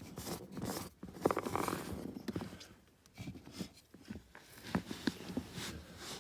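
Scattered small clicks, taps and scrapes of hands and tools working under a dashboard while the heater blower motor's mounting screws are fitted.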